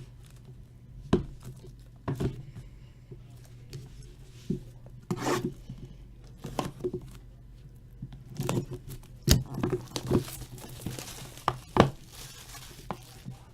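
Sealed trading-card boxes being opened by hand: plastic wrap torn and crinkled, with scattered knocks and clicks of cardboard being handled, and a longer rustle near the end.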